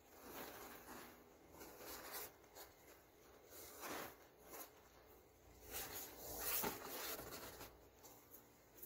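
Fine white powder falling from a hand into a plastic tub, with soft rustling swishes as each handful drops and the hand rubs through the powder. The swells come several times, the loudest a little past the middle.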